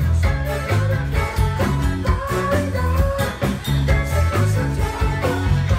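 Band music with a steady drum beat, a bass line and a wavering lead melody.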